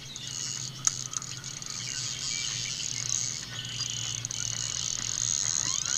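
Spinning reel whirring steadily as a hooked fish is played on the line.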